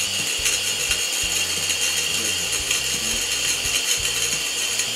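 Portable camping gas burner running on a high flame under a steel stockpot, a steady hissing roar; the flame is strong.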